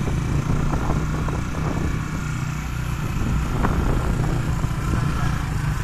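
Small motorcycle engines running at steady road speed while riding, over a constant rush of wind and road noise.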